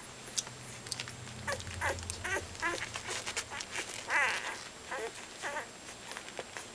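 Two-week-old Soft Coated Wheaten Terrier puppies squeaking and whimpering: a string of short high squeaks, the longest and loudest a wavering whimper about four seconds in, with small clicks and rustles between them.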